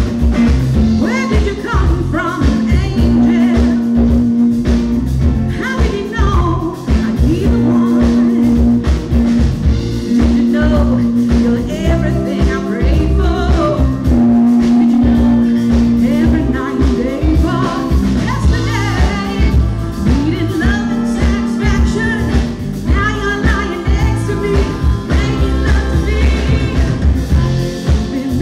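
Live rock band playing a song, with women singing over electric guitar, bass guitar and drums.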